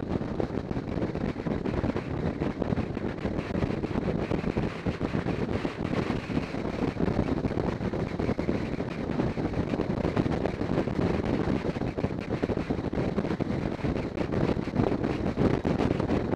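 Wind rushing over the microphone of a camera mounted on a moving motorcycle, mixed with the motorcycle running at road speed, a steady noise with no gear changes or revving standing out.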